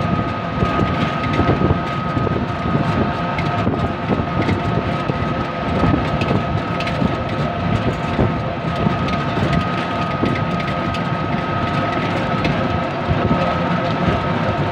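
Ride noise heard from on board a road vehicle travelling steadily along a paved road: a continuous rumble with a steady, unchanging high whine and a few light rattles.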